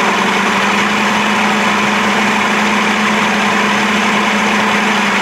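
1992 Johnson 60 hp three-cylinder two-stroke outboard held at a raised, steady speed, run up to check that its charging system is working. The battery reads about 13.2 volts, and it is charging.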